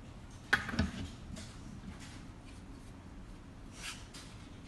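Metal camera mounting bracket being handled and adjusted: two sharp clicks about half a second in, then a soft scrape near the end.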